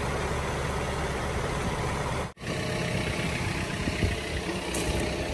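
Small farm tractor's engine running steadily. The sound drops out for an instant a little over two seconds in, then carries on.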